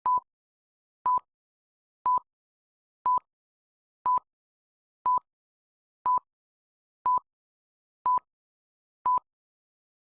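Electronic countdown beeps: ten short, identical high beeps, one each second, all at the same pitch.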